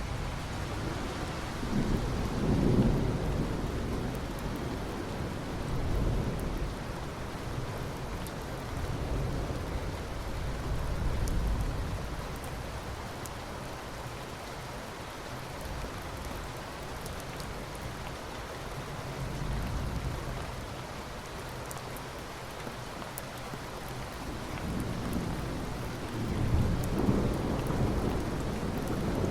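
Steady rain with thunder rumbling several times. The strongest rolls come about three seconds in and again near the end.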